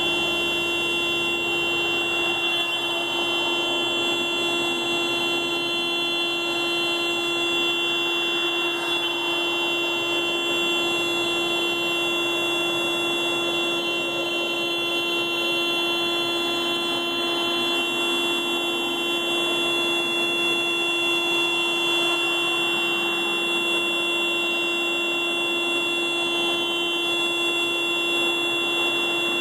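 Car alarm going off as one unbroken, steady horn tone.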